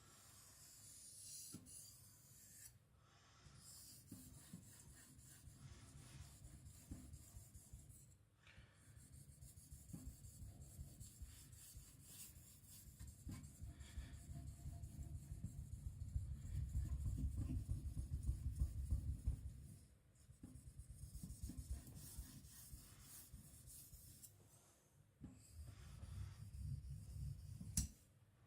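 A kiridashi blade being rubbed back and forth on a whetstone. Runs of quick scraping strokes with a few short pauses; the strokes are loudest a little past the middle.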